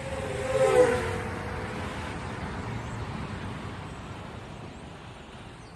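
A vehicle passing by: a tone drops in pitch at the loudest point about a second in, then a rushing noise fades slowly away.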